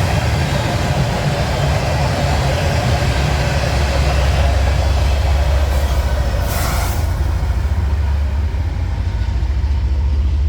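Norfolk Southern mixed freight train rolling past, its cars rumbling on the rails with a rushing steel-wheel noise. There is a brief louder burst about six and a half seconds in, and the noise thins toward the end as the train goes by.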